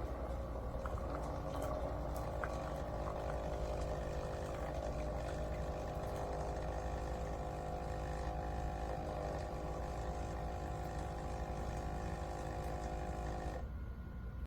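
CHULUX Slim single-serve coffee maker brewing: a steady pump hum with a hiss of water running through, cutting off abruptly near the end as the brew cycle finishes.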